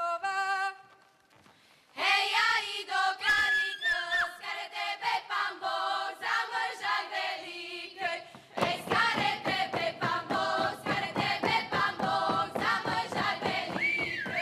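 A cappella Slovak folk song sung by a group of girls, with a short break about a second in before they take up the next phrase. About eight seconds in, their feet start stamping in a quick even rhythm under the singing as they dance round in a circle, and a high whooping shout rises and falls near the end.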